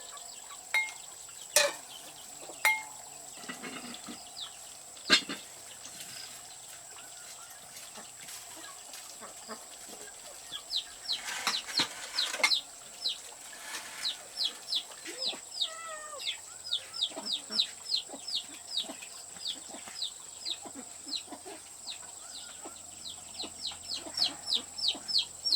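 Chicks peeping: many short, high chirps, each falling in pitch, repeated rapidly from about ten seconds in, with a few sharp knocks in the first five seconds.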